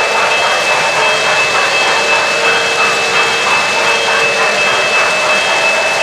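O-gauge model trains running on three-rail track: a steady whirring of electric motors and wheels rolling over the rails, with a steady high-pitched whine.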